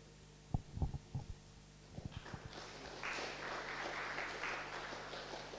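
Audience applauding, starting about two seconds in, swelling, then dying away near the end, after a few low thumps at the start.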